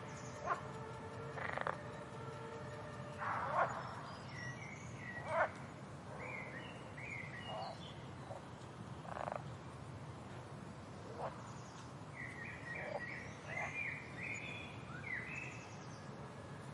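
Frogs calling: scattered short croaks every second or two over a steady low background hum, with runs of higher chirping about a third of the way in and again past the middle.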